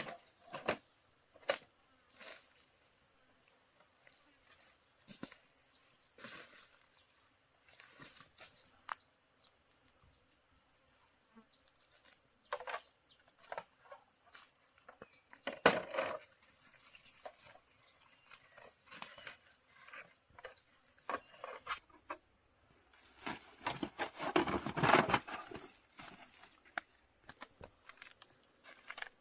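Steady, high-pitched insect drone, with scattered clicks and knocks of hand work over it and a louder run of knocks near the end.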